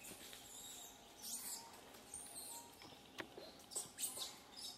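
Faint, high-pitched animal chirps and squeaks, several short calls that rise and fall, with a few sharp clicks about three to four seconds in.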